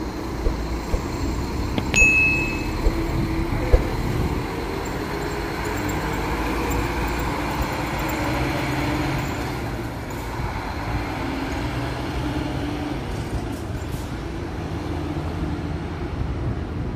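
Marcopolo New G7 coach's diesel engine pulling away and driving off, its note rising and falling as it goes. About two seconds in there is a sharp click with a brief high squeak, and another click a couple of seconds later.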